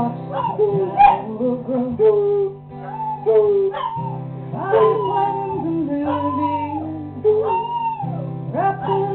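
A foxhound and a beagle mix howling along to guitar chords, their long howls sliding up and down in pitch over the held chords.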